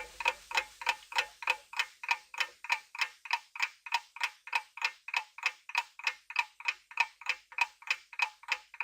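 Clock ticking sound effect counting down the time to answer, a steady series of sharp ticks a little over two a second.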